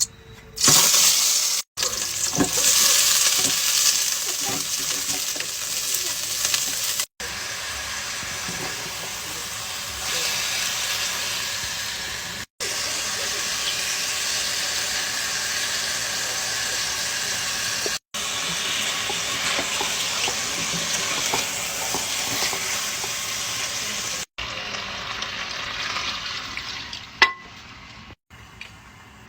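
Chicken frying in hot oil in a pan, a steady sizzle that breaks off abruptly several times where short clips are cut together.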